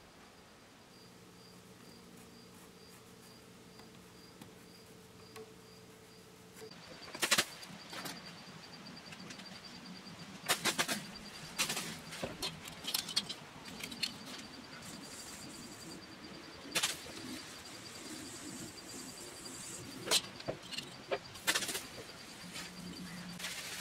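Thin ebony binding strips being handled and bent by hand over a hot aluminium bending pipe: a scatter of sharp clicks and taps as the strips knock against the pipe and bench, with a soft hiss between them. For the first six seconds there is only a faint steady hum with a regular high tick, about two or three a second, which carries on under the clicks.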